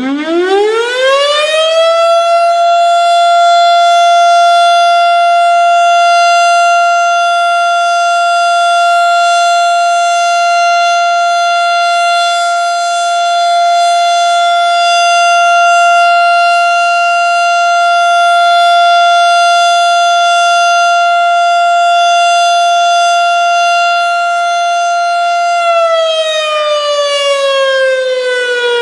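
Federal Signal STH-10 outdoor warning siren sounding its steady-tone alert test: it winds up to a single high steady tone within about two seconds, holds it with the loudness slowly swelling and easing, and starts winding down in a falling wail near the end.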